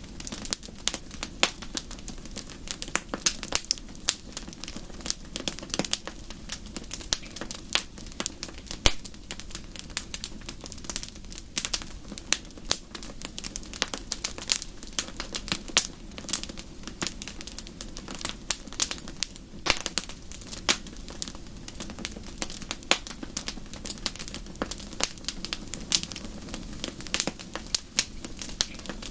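Fire crackling in a fireplace: dense, irregular pops and snaps over a steady low background noise.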